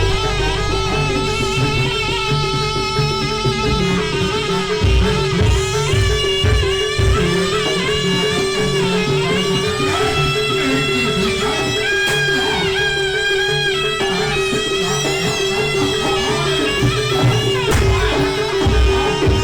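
Live East Javanese jaranan (kuda lumping) gamelan music: a melody line over frequent drum beats and a steady held tone.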